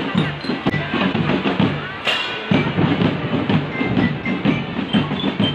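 Children's marching drum band playing a march: drums beat a fast, steady rhythm under a pitched melody from the band's melody instruments, with a brief break about two seconds in.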